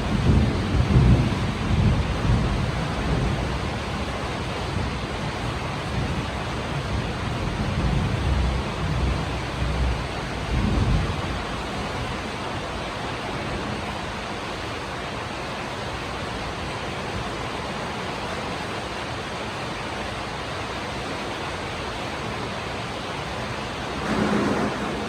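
Steady rain hiss with low rolling rumbles of thunder, strongest in the first few seconds, again around eight to eleven seconds in, and briefly near the end.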